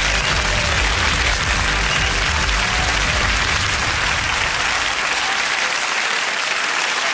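Studio audience applauding over music. The music's bass fades out about five seconds in, leaving the applause on its own.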